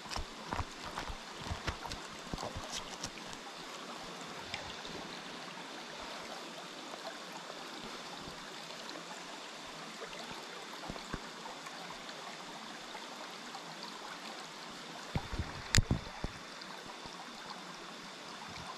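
Shallow, rocky pocket-water stream flowing with a steady rushing babble. Scattered light clicks and knocks come over it in the first few seconds, and a louder knock comes about sixteen seconds in.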